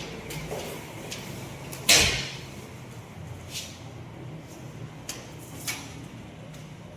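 Handling noises: one loud knock about two seconds in, with several lighter clicks and scrapes, over a low steady hum.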